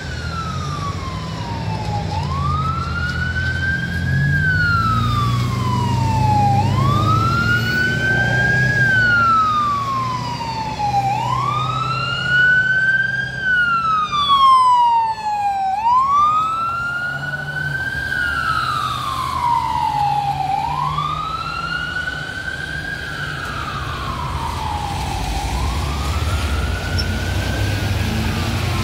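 Ambulance siren in wail mode, sweeping slowly up and down about every four and a half seconds. It is loudest around the middle as the ambulance goes by, then a little fainter as it drives away, over low traffic rumble.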